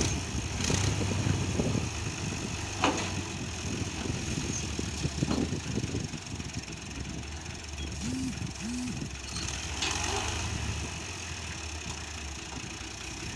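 Tractor engine running steadily, with a few sharp clicks and two brief chirps about two-thirds of the way through.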